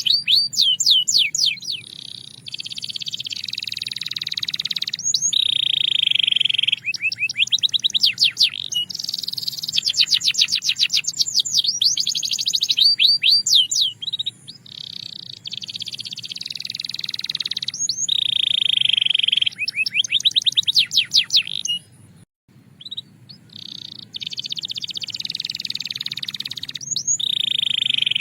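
Domestic canary singing a long song of fast trills and rolling tours, alternating between rapid runs of repeated notes and held rolls. There is a short break about three-quarters of the way through.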